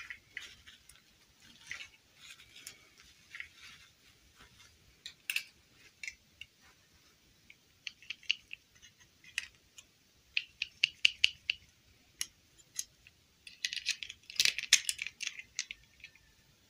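Small plastic dolls being handled: light plastic clicks, taps and rustles in short clusters. The busiest cluster comes near the end, as a rubbery clip-on dress is pressed onto a small doll.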